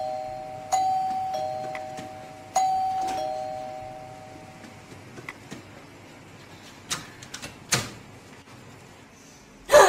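Electronic doorbell chiming ding-dong, two falling notes, rung twice about two seconds apart. A few sharp clicks of the door being opened follow near the end.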